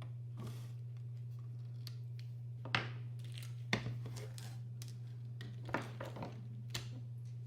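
Parts of a mechanical keyboard being handled: four sharp clicks and knocks over a few seconds, with light rustling, over a steady low hum.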